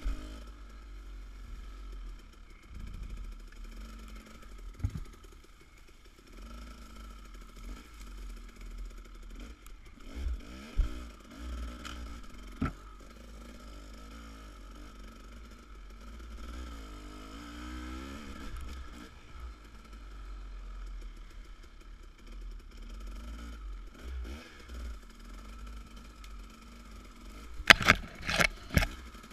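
Dirt bike engine running through the trail, its revs rising and falling, with a few single knocks from the bike. Near the end comes a quick run of loud snaps and scrapes as brush and branches strike the handlebars and camera.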